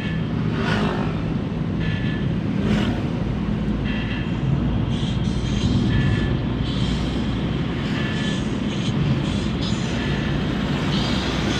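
Suzuki APV van's petrol engine running at a steady speed. Brief high-pitched chirps come and go over it every second or two.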